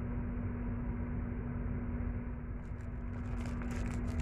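Steady hum of a running motor: one constant low tone over a rumble underneath. A few light handling clicks come in about two and a half seconds in.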